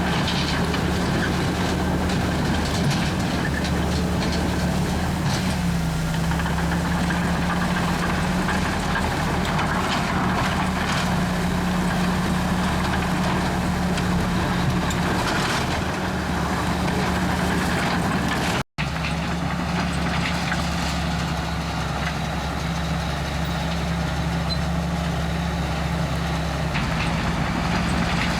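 Komatsu D61EX bulldozer's diesel engine running steadily, with scattered short clanks and scrapes over it. The sound cuts out for an instant about two-thirds of the way through.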